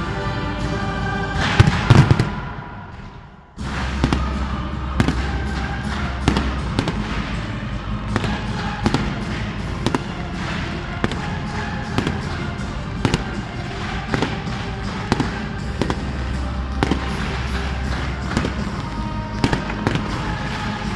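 Fireworks display: music fades out over the first few seconds. About three and a half seconds in, a dense run of bangs and crackles from bursting aerial shells starts suddenly, with music still playing underneath.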